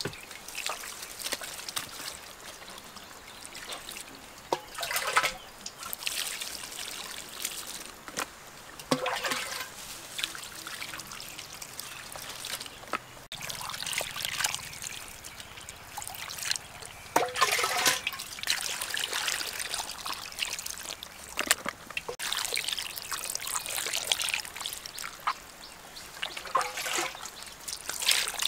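Water poured from a bowl over a pile of frogs on a rock, splashing and trickling off in a string of separate pours as the frogs are rinsed and rubbed by hand.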